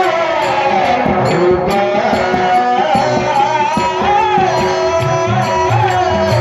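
Devotional singing: a solo voice sings a bending, ornamented melody over a steady held drone, with regular drum strokes underneath.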